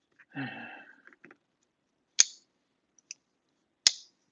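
Two sharp clicks about a second and a half apart, with a faint tick between them, from small folding pocket knives being handled on a desk.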